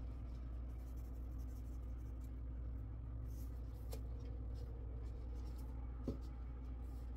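Quiet kitchen room tone: a steady low hum, with a faint tap about four seconds in and another about six seconds in.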